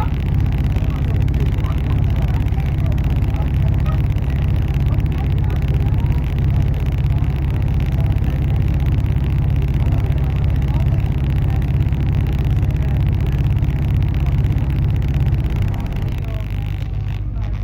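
Passenger train running along the line: a steady, heavy low rumble with a repeating pulse, easing slightly near the end.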